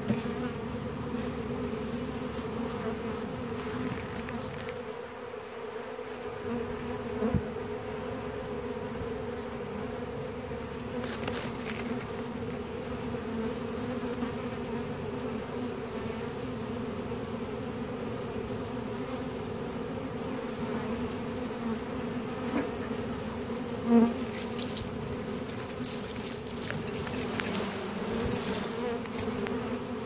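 A swarm of honey bees buzzing: a steady hum from the clustered mass, with single bees flying close past. A few brief knocks stand out, the loudest about 24 seconds in.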